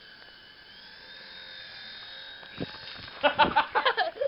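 Small electric motors of a toy remote-control helicopter whining steadily, the pitch dipping slightly and coming back. About three seconds in, loud children's voices break in over it.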